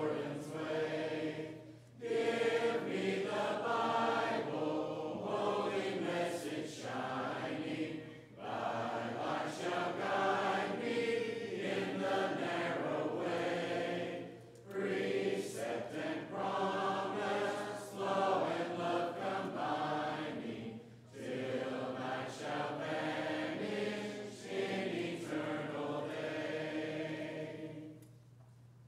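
A church congregation singing a hymn a cappella, with no instruments. The verse goes in phrases about six seconds long with brief pauses for breath, and the singing ends about a second before the close.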